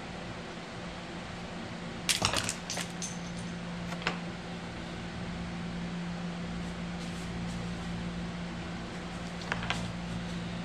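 A few sharp clicks and taps of a small plastic handlebar switch housing and its parts being handled and pried apart: a cluster about two seconds in, one near four seconds, and a pair near the end, over a steady low hum.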